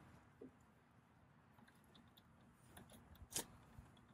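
Near silence with a few faint clicks of a wire terminal and small hand tools being worked onto a stud; the sharpest click comes about three and a half seconds in.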